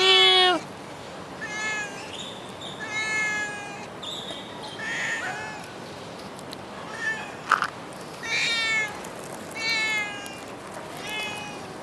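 A cat meowing again and again, about seven short meows spaced a second or so apart, each rising and then falling in pitch. A single sharp click, the loudest moment, comes about two-thirds of the way through.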